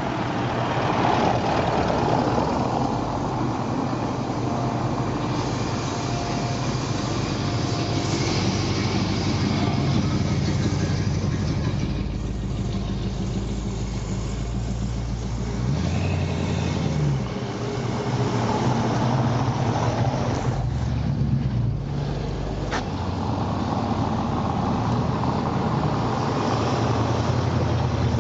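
Ford Mustang engines running steadily at idle, with a brief rev and fall about sixteen seconds in.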